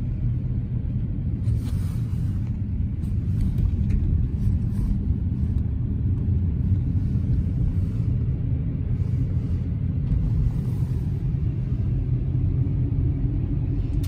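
Car driving, heard from inside the cabin: a steady low rumble of engine and tyre noise.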